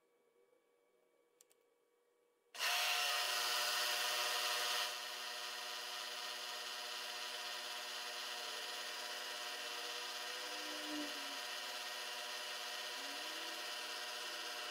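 Milling machine spindle switched on about two and a half seconds in, louder for its first two seconds, then running steadily with a steady whine while a small drill works into a brass part, making the hole that is to be tapped for a thread.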